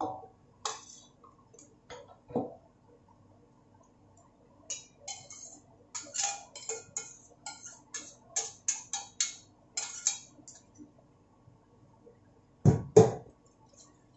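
A metal utensil clinking and scraping against a stainless steel frying pan as noodles are served into a bowl, with a quick run of short clinks through the middle. Two heavy knocks of the pan near the end.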